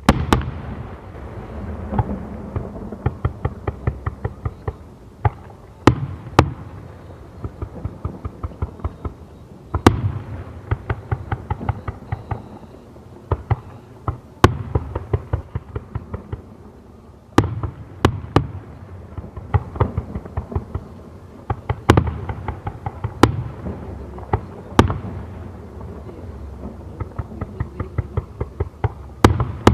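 Fireworks display heard from about 500 m away: loud shell bursts boom every few seconds, about nine times, with runs of rapid, evenly spaced pops crackling between them.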